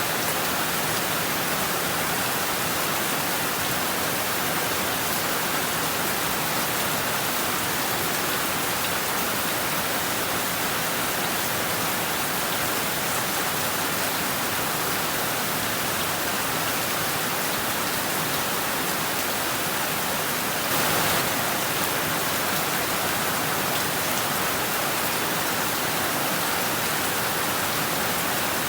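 Heavy rain falling steadily in a dense, even hiss, with one brief louder swell about three quarters of the way through.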